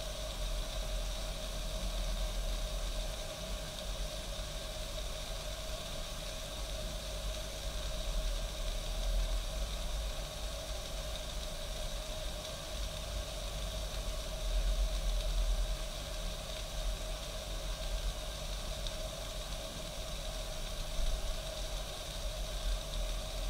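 East German Kaffee Boy K500 drip coffee machine brewing: a steady hiss of steam and boiling water over a low rumble.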